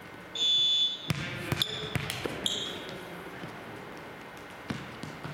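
A referee's whistle blows once, a single sharp blast of about half a second, the signal to serve. Then a volleyball is bounced several times on the hardwood gym floor, with a couple of brief high squeaks and another knock or two near the end.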